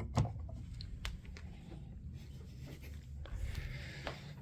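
Handling noises while the vacuum's power cord is being plugged in: scattered clicks and a knock about a quarter second in, then a short scraping rustle a little after three seconds. The motor is not yet running.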